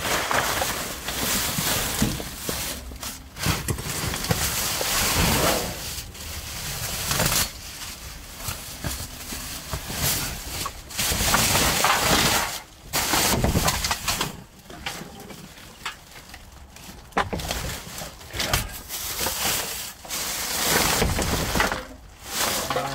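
Plastic wrapping and bin bags crinkling and rustling in irregular bursts as hands rummage through a dumpster, with a few sharp knocks among them.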